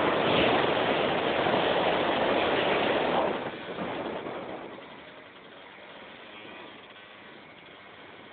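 50cc scooter engine (MBK Nitro) running loud as the scooter passes close by. The noise drops off sharply about three seconds in, and the engine carries on much fainter as the scooter moves away.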